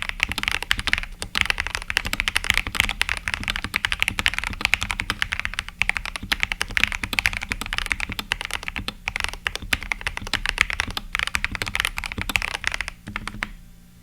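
Akko 3068B mechanical keyboard, modded and fitted with Jelly Pink switches, being typed on in rapid continuous keystrokes that stop about a second before the end.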